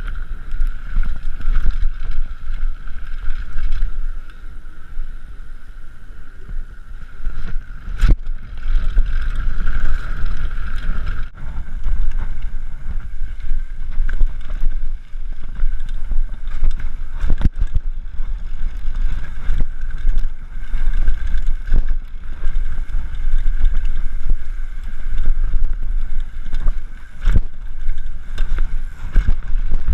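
Mountain bike rattling and rumbling down a rough trail, with wind buffeting an action camera's microphone, a steady high-pitched whine, and sharp knocks as the bike hits bumps, three of them stronger than the rest.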